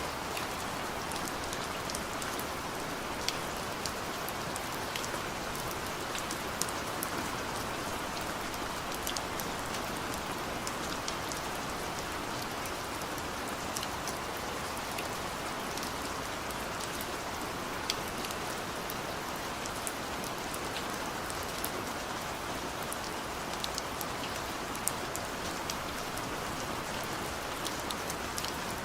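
Steady rain falling, with many individual drops ticking sharply on a surface amid the even hiss of the downpour.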